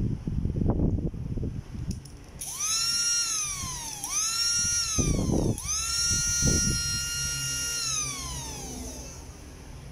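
Salvaged cordless-drill 550-size brushed DC motor being test-run: it whines up to speed three times, each time winding down when the power is cut, the last run held for about two seconds before it spins down. Handling knocks come in the first two seconds.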